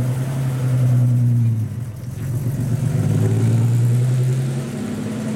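Chrysler Valiant Pacer's 245 Hemi inline six-cylinder engine running with a steady low note that dips briefly about two seconds in, then picks back up.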